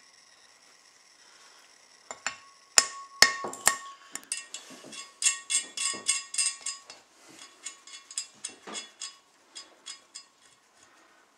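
Hammer striking a new wheel stud to seat it in a brake rotor: a few hard metallic blows about two seconds in, then a quick run of lighter ringing taps that thins out near the end.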